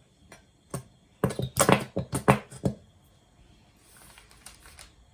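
Quick sharp clicks and knocks from a pizza sauce container being opened and handled, loudest in a cluster in the first half, then a faint rustling near the end.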